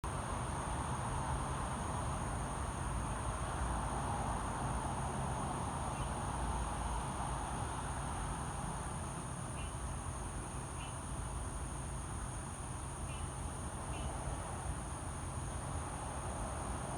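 Night insects droning steadily at a high pitch, with a few short faint chirps, over a steady low rumble.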